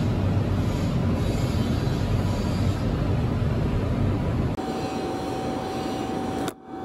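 Steady low mechanical rumble of shop machinery. About four and a half seconds in it changes to a quieter hiss with a steady humming tone, and there is a brief drop just before the end.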